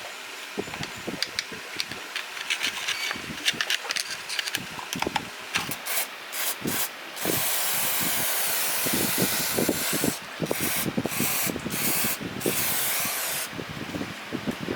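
Light clicks and taps of parts being handled, then a spray hissing: a few short bursts about six seconds in, followed by a steady spray of about six seconds broken by several short bursts.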